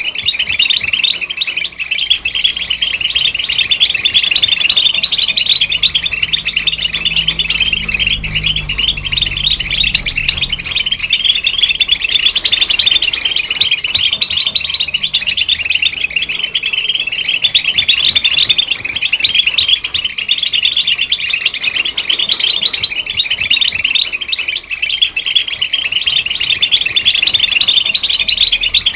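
European goldfinch singing, a rapid unbroken stream of twittering chirps and trills.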